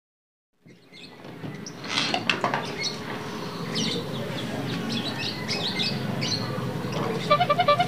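Small birds chirping over a steady low background hum. Near the end a rapid electronic beeping pattern starts, about six pulses a second.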